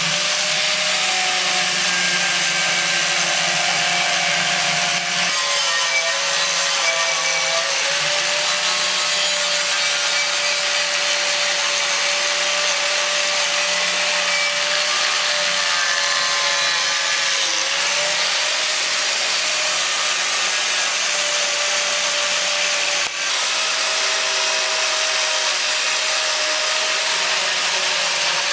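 An electric power tool running continuously at work on a part, with a steady motor whine that dips slightly now and then under load over an even grinding hiss. The sound cuts out briefly near the end.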